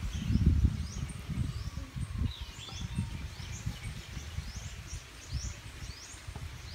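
Outdoor ambience: an uneven low rumble, the loudest part, under repeated short high chirps that fall in pitch.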